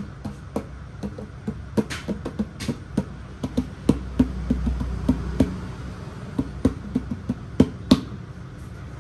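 Irregular light taps and clicks of a plastic milk-formula can lid and plastic baby bottles being handled, a few sharper knocks among them.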